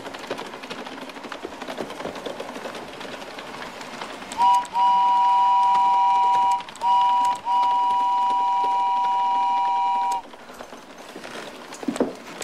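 A two-note whistle, both notes sounding together, blown in four blasts: a brief toot, a long blast of about two seconds, another short toot, then a long blast of nearly three seconds that cuts off suddenly. A couple of soft knocks follow near the end.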